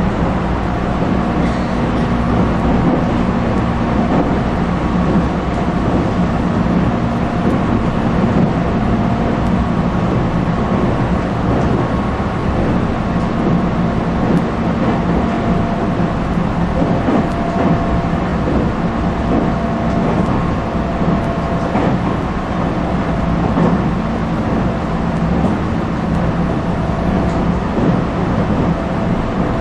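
JR electric commuter train running along the line, heard from inside the carriage: a steady rumble of wheels on rails with a steady hum.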